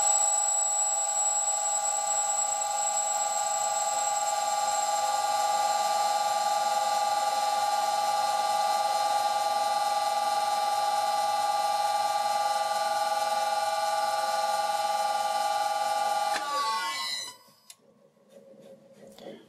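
Old Karger lathe running at its top speed of 600 RPM with a steady high-pitched whine and a slight vibration, which the owner hopes a new belt will cure. About 16 seconds in it is switched off, and the whine falls in pitch as the spindle spins down to a stop.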